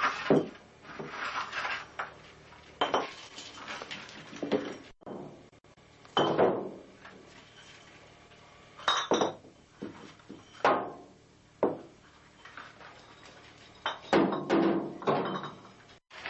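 Glass bottles knocked by a hedgehog, clinking and knocking against the tiled floor in a series of separate knocks with short ringing tails; one bottle topples over.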